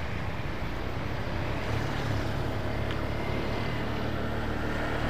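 Motor scooter riding along at steady speed: a continuous engine hum under wind rushing over the microphone.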